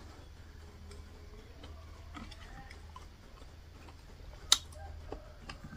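A metal spoon clinks sharply once against a ceramic bowl about three-quarters of the way through, with a few fainter clicks before it, over a faint low hum.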